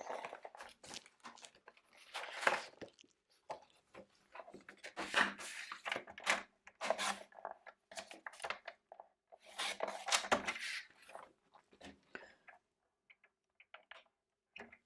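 Cardstock rustling and scraping as sheets are handled and slid into place on a paper trimmer, with small clicks, in uneven clusters that thin out near the end.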